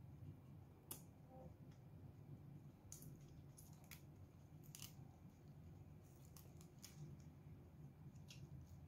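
Faint crisp crunches of raw leafy greens being chewed, a few separate snaps spread over several seconds against a low room hum.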